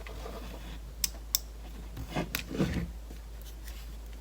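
Handling noises from an opened Nintendo 3DS XL: two sharp small plastic clicks a little after a second in, then two short bursts of rubbing and scraping.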